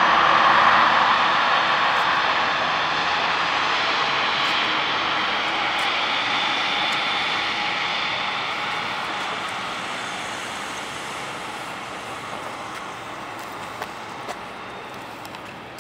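Airbus A320 jet engines at low thrust as the airliner taxis past, a steady rush with a thin high whine. It is loudest about a second in, then fades steadily as the aircraft moves away.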